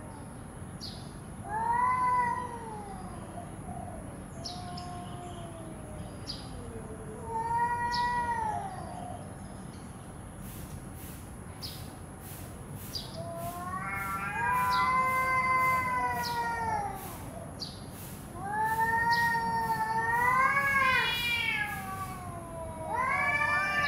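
Cats yowling at each other in a hostile standoff: long, wavering caterwauls that rise and fall in pitch, in about five bouts, the later ones longer and louder from about halfway in. The drawn-out yowls are the threat calls of a territorial face-off, one cat arched and bristling.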